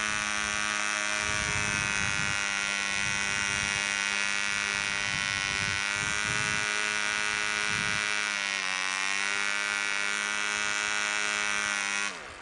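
Clanford Clan 0.48 cc model diesel engine running steadily at a high, even pitch with a 7x4 nylon propeller. Its pitch sags slightly about nine seconds in and recovers. Near the end the engine stops, its pitch falling quickly as it winds down.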